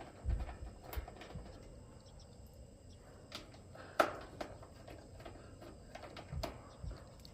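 Scattered clicks and soft knocks of an 8 mm socket working the screws off an outdoor air-conditioner condenser's fan shroud, with the sharpest metallic click about four seconds in.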